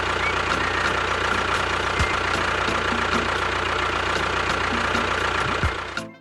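Engine idling steadily with a faint regular ticking; it cuts off abruptly just before the end.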